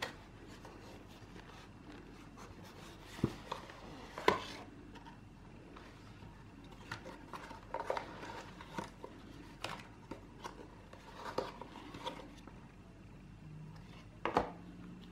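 Small cardboard box and paper inserts being handled: scattered rustles, scrapes and light taps, with a few sharper knocks, the loudest about four seconds in and near the end.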